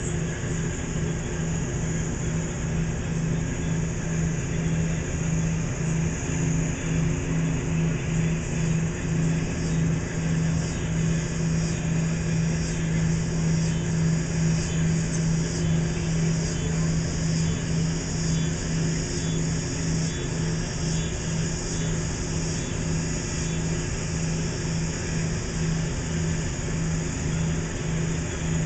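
Steady low engine hum, pulsing evenly, with faint quick ticks repeating high above it.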